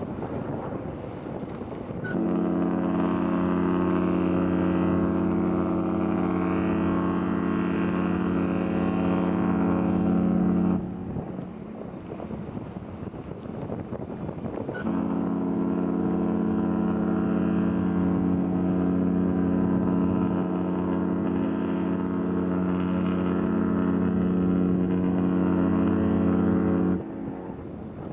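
Celebrity cruise ship Constellation's horn sounding two long, deep, steady blasts as the ship departs, the first about nine seconds long and the second about twelve, each starting and stopping abruptly.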